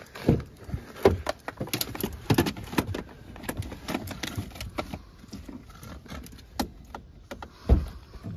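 A dog climbing into a car and scrambling across the front seats and centre console: scattered knocks, scuffs and clinks, with a heavier thump near the end.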